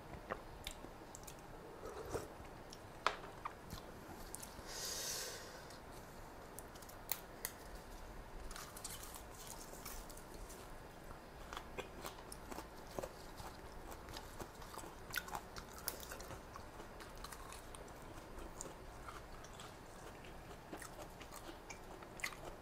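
Close-miked chewing and mouth sounds of a person eating rice noodles in coconut-milk curry, with many small wet clicks and light crunches. A short hiss comes about five seconds in.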